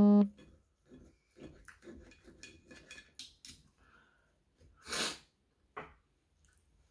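Quiet eating sounds of chewing and faint knife-and-fork clicks on a plate, then, about five seconds in, one loud sniff through the nose, followed by a shorter, fainter one.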